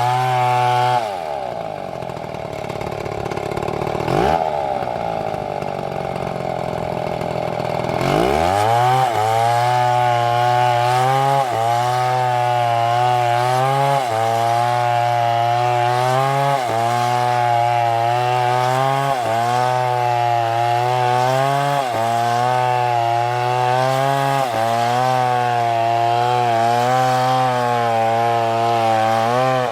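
Two-stroke chainsaw running at high revs. About a second in the engine eases off, then revs back up around eight seconds. After that it holds full speed, its pitch dipping slightly every couple of seconds.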